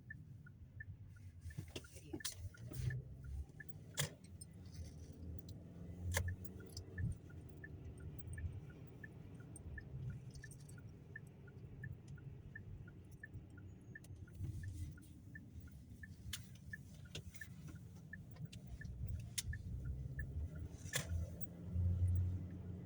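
Low rumble of a car's engine and tyres heard inside the cabin, with a turn signal ticking evenly, about twice a second, from a few seconds in until near the end. Scattered sharp clicks and knocks sound over it.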